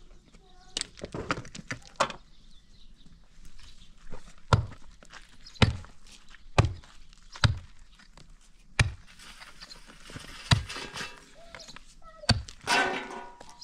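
A series of dull thuds and knocks, irregular, roughly one a second, with a short pitched sound near the end.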